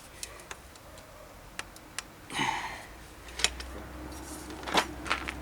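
Scattered light metallic clicks and taps of hand tools being picked up and fitted onto a bicycle's bottom bracket, a few sharp ticks a second or so apart with a short scrape in the middle. A low steady hum starts about three seconds in.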